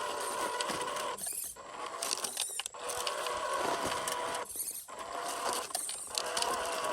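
Electric motor and gearbox of a 1/12-scale MN128 Jeep RC crawler whining in short runs, cutting out four times briefly as the throttle is let off and reapplied, with small ticks and clicks over it.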